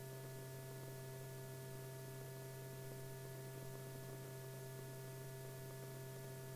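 Steady low electrical hum with a few fainter steady higher tones over a faint hiss, unchanging throughout: the background noise of an old film soundtrack.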